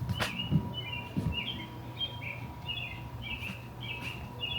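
A bird chirping over and over in short, quick two-note calls, about two or three a second. A couple of light knocks sound in the first second or so.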